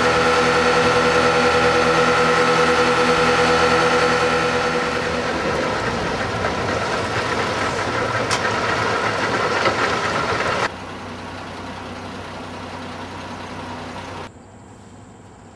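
Boat outboard motor running steadily at speed, with the rush of water and wind. About ten seconds in it cuts off abruptly to a quieter steady hum, which drops again near the end.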